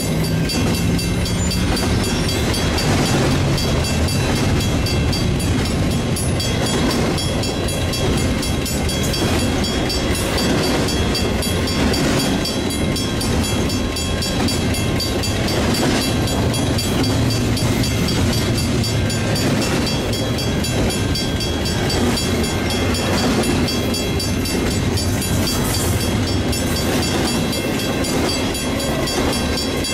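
Intermodal freight train rolling past: a steady rumble and rattle of steel wheels on rail as double-stack container cars and trailer-carrying flatcars go by.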